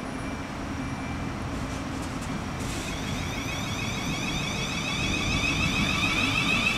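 Class 707 electric multiple unit pulling away from the platform: a low steady hum, then about two and a half seconds in the traction motors start up with an electric whine that climbs in pitch and grows louder as the train gathers speed.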